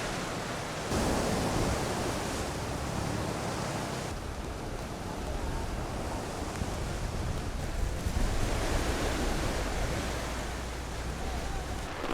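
Steady rushing noise of wind and water from typhoon flooding, its tone changing abruptly about one and four seconds in.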